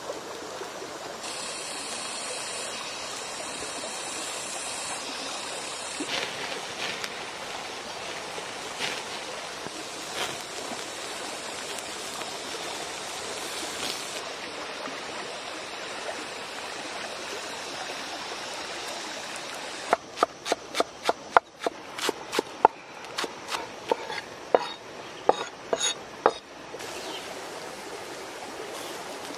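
Oysters in their shells sizzling over a fire, the sauce bubbling with a steady hiss. For several seconds near the end, a rapid run of sharp crackling pops.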